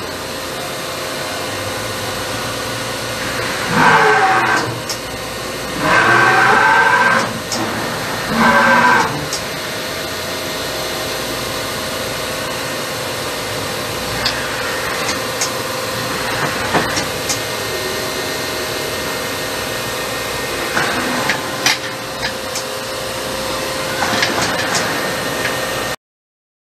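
Bridgeport VMC-1000 CNC vertical machining center running, its spindle turning at 4000 RPM with a steady whine and hum. Three louder whines, each a second or so long, about four, six and nine seconds in as the axes traverse the table and head; the sound cuts off abruptly near the end.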